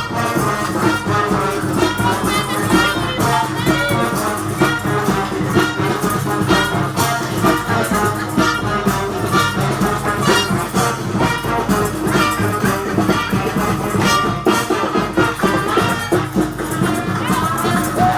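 Brass-and-percussion community street band playing a lively tune, with horns over a steady drumbeat.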